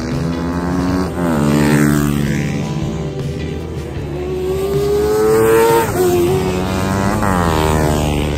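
Several racing motorcycle engines at full throttle around the circuit, their pitch climbing and then dropping sharply at each gear change, about a second in, near six seconds and again about a second later.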